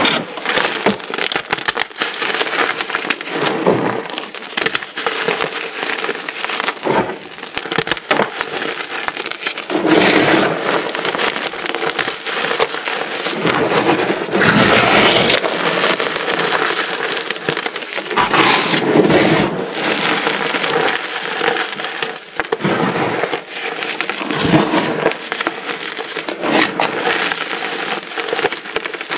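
Many small pyramids of dyed, reformed gym chalk being crushed together, a dense continuous crunching and crackling with louder stretches of crunch in places.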